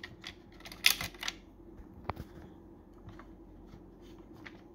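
Hands working on the opened Neato D7 robot vacuum's plastic chassis: a quick cluster of clicks and rattles about a second in, one sharp click around two seconds, then a few faint taps, over a faint steady hum.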